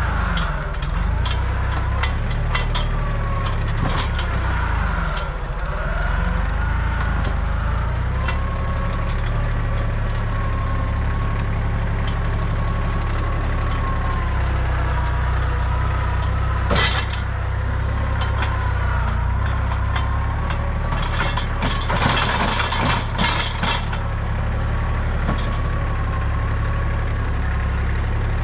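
Kubota compact tractor engine running steadily with a wavering whine over it, as the tractor works through brush. Branches snap with a sharp crack about two-thirds of the way in and a quick run of cracks a few seconds later.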